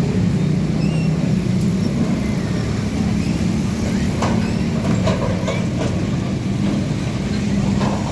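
Heavy truck's diesel engine running steadily on the road, a low drone amid traffic noise.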